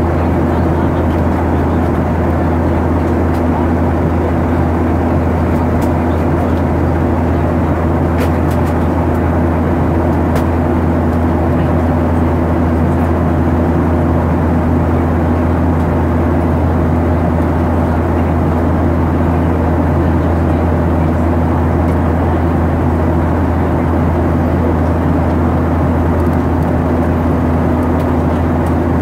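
Steady cabin drone of a Ryanair Boeing 737-800 in its climb-out, heard from inside the passenger cabin: jet engine noise and airflow with a deep, even rumble and a steady hum.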